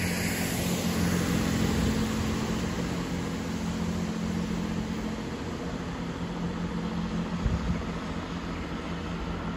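A Class 166 diesel multiple unit departs, its diesel engine drone steady and slowly fading as the train draws away.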